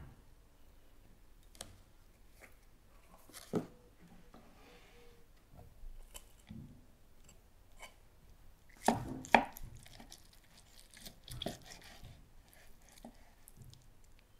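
Large knife slicing through a grilled bone-in beef steak on a wooden cutting board: scattered quiet cuts and taps of the blade on the board, with a louder cluster of knocks about nine seconds in.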